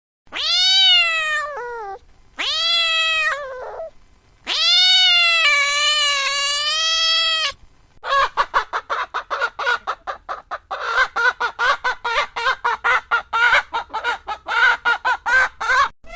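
A cat meowing three times in long, drawn-out meows that rise then fall in pitch. From about halfway through, a fast run of short repeated animal calls follows, about six a second.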